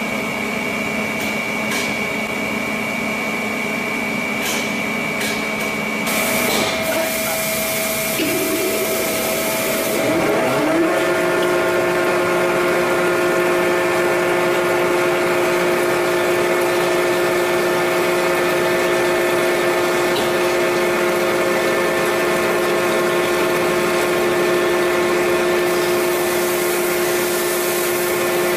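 Metalworking machinery running with a steady whine and hum made of several tones. About six seconds in the sound changes: a pitch slides upward and settles near eleven seconds into a new steady whine.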